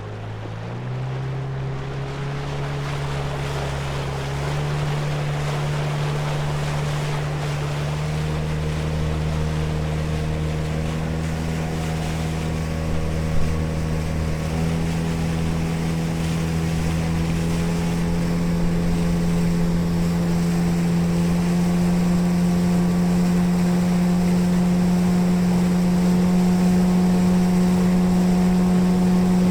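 Motorboat engine running and picking up speed in several steps over the first fifteen seconds, then holding a steady, higher pitch, with water rushing and wind over the hull.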